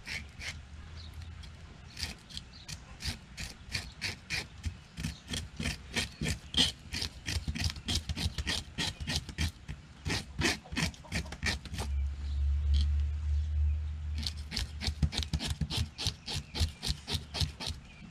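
A handheld fish scaler scraping the scales off a saugeye against the grain in quick repeated strokes, about four a second. A low rumble rises for a couple of seconds past the middle while the strokes thin out.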